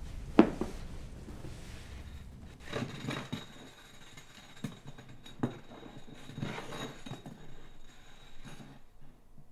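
A bottle knocked down on a wooden floor about half a second in, the loudest sound, then scattered softer knocks and scrapes as it is spun for spin the bottle.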